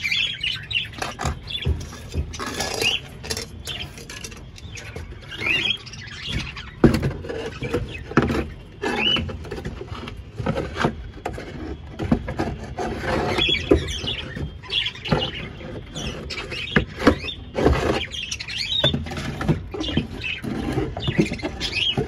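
Budgerigars chirping in an aviary, over a run of irregular scraping, scratching and knocking sounds from the aviary being cleaned.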